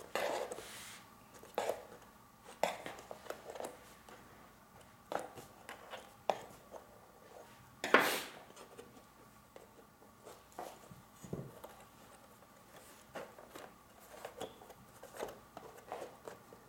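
Metal letter opener working the small soft metal retaining tabs on the back of a poster frame: scattered light clicks, taps and scrapes against the metal tabs and hardboard backing, with one louder knock about halfway through.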